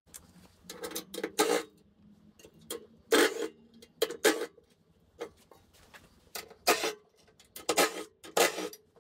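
Cordless driver with a 3/8 socket run in about six short bursts, backing the bolts out of a riding-mower deck's metal belt covers. There are a few light clicks between the bursts.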